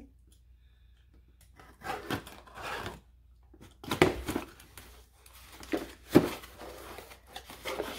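Shipping package being handled and opened: irregular bursts of paper and cardboard rustling and tearing, with a few sharp cracks, the loudest about four and six seconds in.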